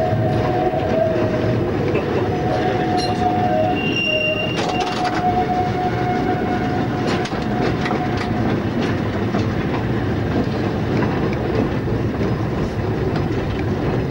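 Interurban tramcar running along the track, heard from the driver's cab: a steady rumble with scattered clicks from the rails. A high whine is held over it for the first eight seconds or so, then stops.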